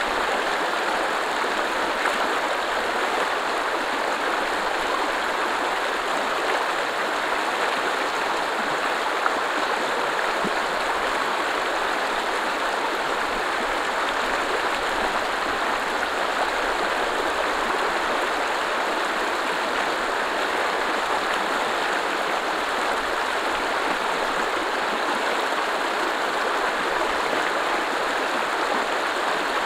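Fast, shallow mountain river rushing over stones: a steady, even rush of water.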